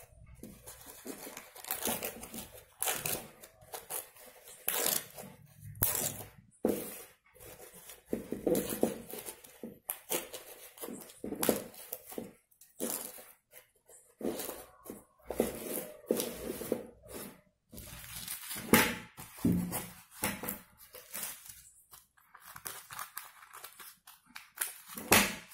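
Dry corn husk being torn into strips and rustled by hand: an irregular run of short, crisp rips and crinkles.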